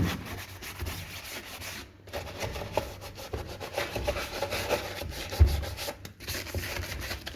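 Sponge scrubbing the plastic parts of an automatic washing machine in quick, irregular rubbing strokes, with one louder knock about five and a half seconds in.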